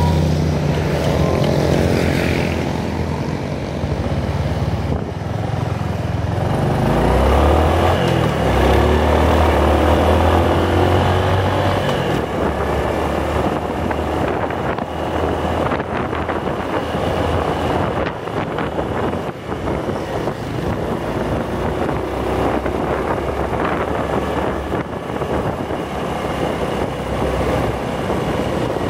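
Motor scooter engine running at road speed, with wind rushing over the microphone and the sound of other traffic on the road. The engine's low note is strongest for a few seconds about a third of the way in.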